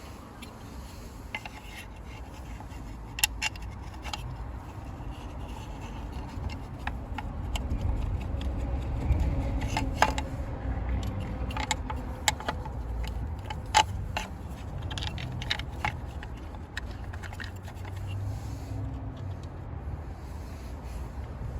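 Scattered clicks, taps and scrapes of a car's engine control module and its screw and bolts being handled and fitted into place, over a steady low rumble.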